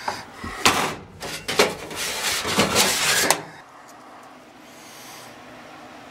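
Sheet metal being handled: scraping and clattering with several sharp metallic knocks, stopping about three and a half seconds in.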